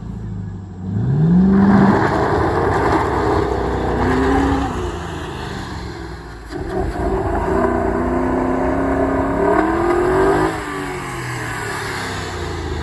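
Ford Mustang engine revving: the revs shoot up about a second in, ease off around six seconds, then climb steadily again before dropping back to a lower, steady run about ten seconds in.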